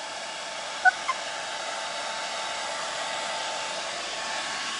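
Handheld hair dryer on its low setting, running steadily with a stretchy curler attachment fitted over its nozzle. A brief high squeak about a second in.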